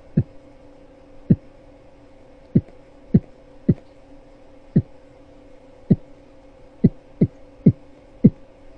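Beatboxed imitation of a heartbeat in atrial fibrillation: about eleven deep, mouth-made thumps at irregular, unevenly spaced intervals over a faint steady hum.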